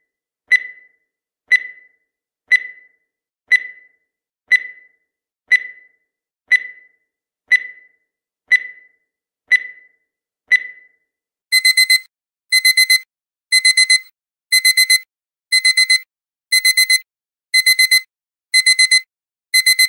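Countdown timer sound effect: a short beep once a second for about eleven seconds, then the count runs out and a digital alarm-clock alarm sounds, quick groups of four beeps repeating about once a second.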